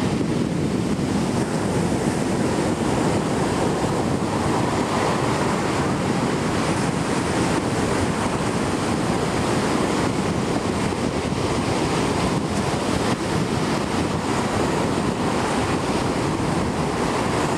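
Ocean surf breaking close by and washing up over the sand, a steady wash of noise with no let-up, with wind buffeting the microphone.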